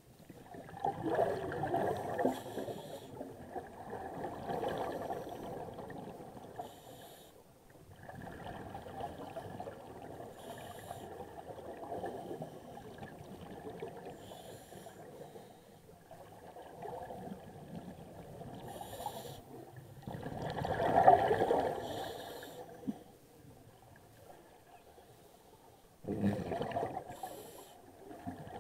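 Scuba diver breathing through a regulator underwater: long bursts of exhaled bubbles gurgling and rushing, separated by quieter pauses. The loudest burst comes about two thirds of the way through.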